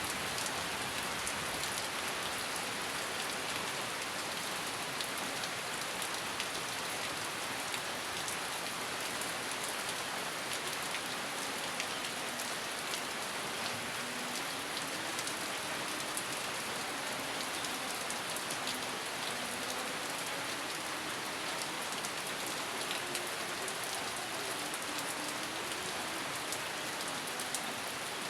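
Steady rain falling on a surface, an even dense hiss with scattered sharp ticks of individual drops. No thunder is heard.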